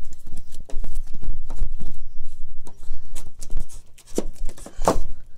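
Handling noise from a phone being moved by hand, a low rumble with scattered soft clicks and knocks, two of them stronger about four and five seconds in.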